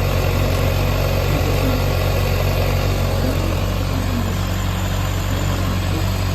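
Yamaha XJR400 air-cooled inline-four engine idling steadily, free of abnormal noise by the seller's account.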